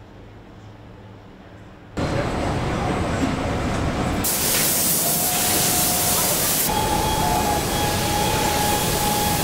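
Low hum, then from about two seconds in the steady noise of a car-body production line. From about four seconds in a loud hiss of a robotic paint-spray nozzle spraying paint onto a car body, with a steady whine under it.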